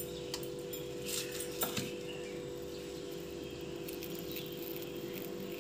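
Faint taps and soft handling sounds of hands shaping a paneer-and-moong-dal dough into balls and setting them on a metal plate, mostly in the first two seconds. A steady low hum runs underneath.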